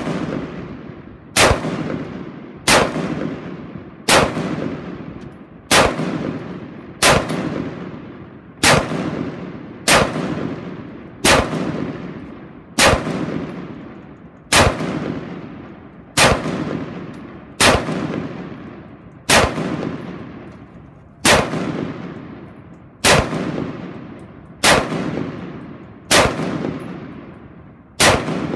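Semi-automatic fire from an AR-15 rifle converted to external-piston operation with an Osprey 416 kit, shooting 5.56 ammunition. About twenty single shots come at a slow, even pace of roughly one every second and a half, and each shot trails off into echo.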